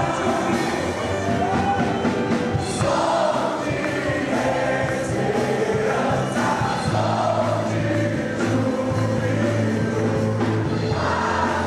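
Group singing of a Christian worship song with instrumental accompaniment: several voices together over steady, held bass notes.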